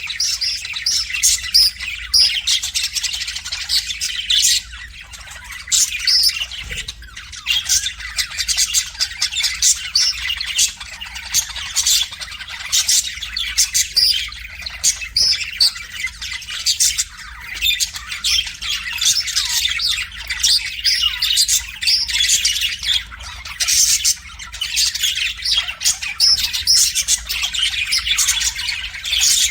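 Budgerigar warbling: a continuous fast chatter of chirps, clicks and harsh squawks, with a few brief pauses.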